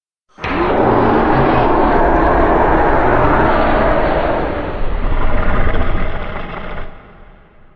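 Indominus Rex roar, a film creature vocalization designed from layered animal recordings: one long, loud, rough, rumbling roar that starts abruptly, swells again near the end, then cuts off into a fading echo.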